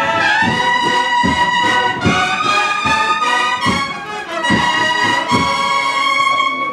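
A brass band plays a Holy Week processional march: held brass chords over a steady bass drum beat, about one stroke every 0.8 seconds.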